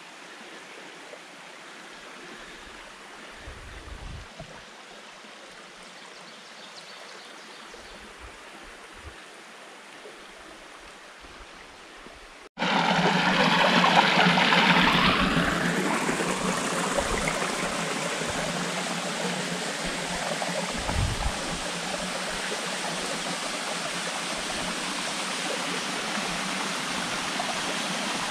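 Rushing stream water, a steady even hiss. About halfway through it cuts abruptly to a much louder, closer rush of water that stays loud.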